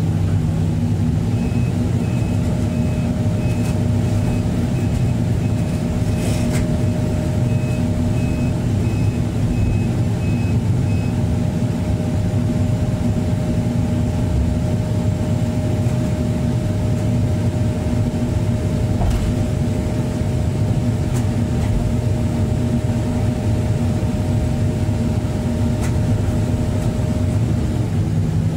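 Excavator diesel engine running steadily, heard from the operator's cab, with a high warning alarm beeping about one and a half times a second for roughly the first ten seconds.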